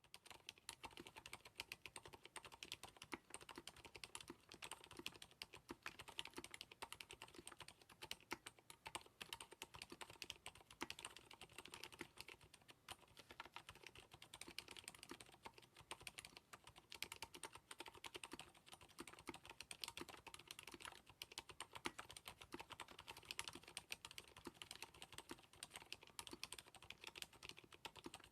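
Mechanical keyboard typed on continuously and quickly: an mStone Groove T with Krytox 105-lubed Cherry MX Silent Red (35g) switches on an aluminium plate, silicone-dampened, giving soft, muted keystrokes.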